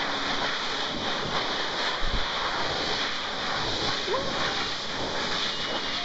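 Handheld hairdryer running steadily, blowing air close to the microphone, a steady rush with a thin whine. A brief rising squeak sounds about four seconds in.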